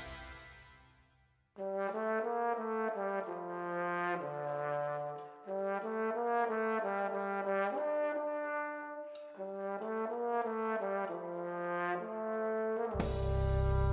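Music fades out, then a solo trombone plays an unaccompanied melody of held notes with a couple of short breaths between phrases. Near the end the full reggae band comes in with drums and bass.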